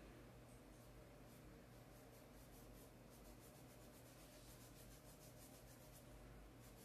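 Faint, quick scratching of a stiff paintbrush scrubbed back and forth over coarse sacking cloth, dry-brushing paint on.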